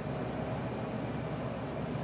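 Steady low hum of background room noise, with no distinct tool strokes.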